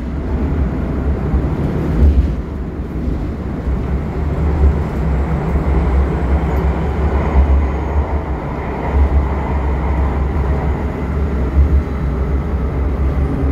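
Metro train running, heard from inside the passenger car: a steady low rumble of the wheels and car, with rattling noise on top. A faint high whine joins about halfway through.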